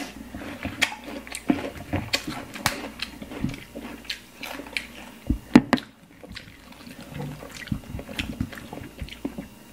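Close-up mouth sounds of eating crispy roast pig's head: wet chewing and crunching with many small clicks, and one louder knock about five and a half seconds in.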